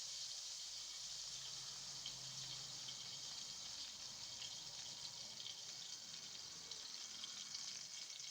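Food frying in hot oil in a pan: a steady sizzle with small crackles that come more often toward the end.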